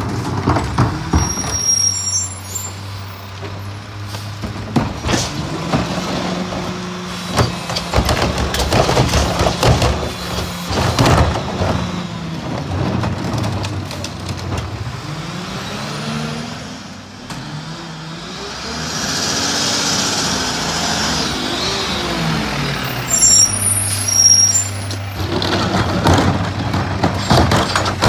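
Mack MRU garbage truck with a McNeilus rear-loader body: the diesel engine runs steadily while trash carts bang and clatter against the hopper. About halfway through the truck pulls ahead, its engine pitch rising and falling as it accelerates and slows. Air brakes hiss as it stops, then the engine settles again while the next carts are loaded.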